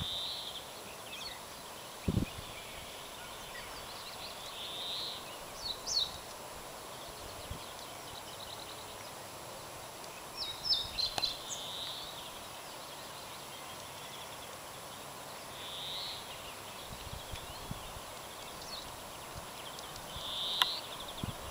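Small songbirds singing in woodland: short high chirps and buzzy trills every few seconds over a faint steady hiss, with a low thump about two seconds in.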